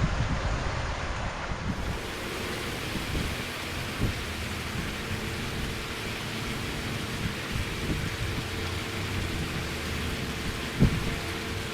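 Steady rushing noise with a low, uneven rumble, broken by a knock about four seconds in and a louder knock near the end.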